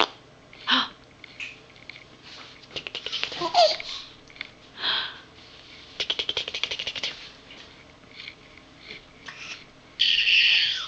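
A baby making her own repeated funny noises, short breathy and sputtering bursts with laughter among them, including a rapid buzzing run of pulses about six seconds in and a louder hissing burst near the end.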